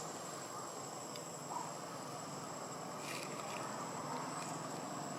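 Outdoor ambience: a steady high-pitched insect whine over a constant low noisy hum, with a brief scratchy rustle about three seconds in.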